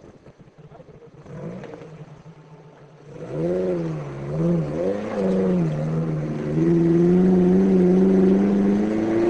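Off-road 4x4 engine revving hard under load as it climbs a steep rocky slope. It comes in loud about three seconds in, its revs rising and falling several times, then held high and steady near the end.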